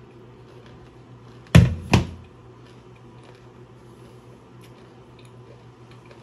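Two sharp knocks about half a second apart, the first louder, as a white ceramic bowl and a paper towel roll are set down at a granite kitchen counter and sink. A faint steady low hum runs underneath.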